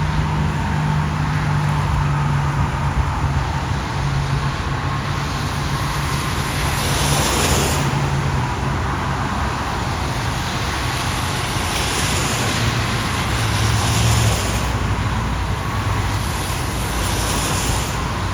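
Cars driving along a flooded street: engines running with tyres swishing through standing water, and a louder rush of spray several times as vehicles pass.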